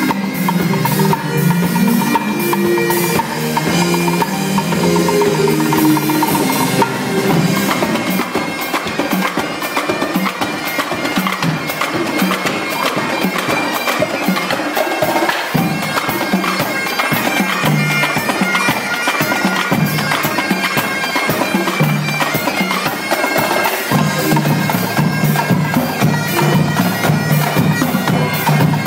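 Highland bagpipes of a pipe band playing a tune over their steady drones, with a drum line playing along in fast strokes. The drumming gets busier about seven seconds in.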